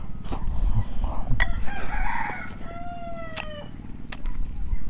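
A rooster crowing once, ending on a long held note that falls slightly in pitch, about three seconds in. Sharp clicks of chopsticks against ceramic bowls are scattered through it.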